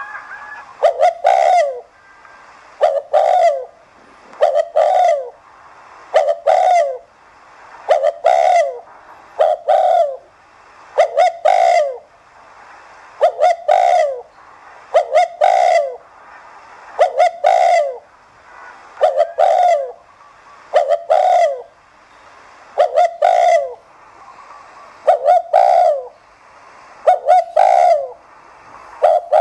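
Spotted dove cooing: a short coo of quick falling notes, repeated about every one and a half to two seconds. This is the fast 'thúc gù' coo that keepers use to rouse other doves into cooing.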